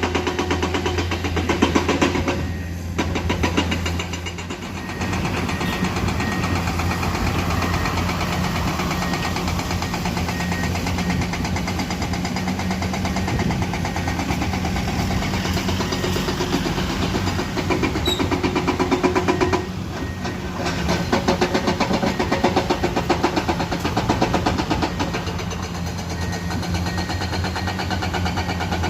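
Diesel engine of a Komatsu hydraulic excavator running steadily at working revs, easing off briefly twice.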